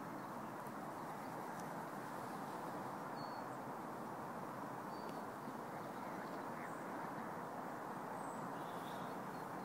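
Outdoor ambience: a steady distant background noise with a few faint, short, high bird chirps scattered through it.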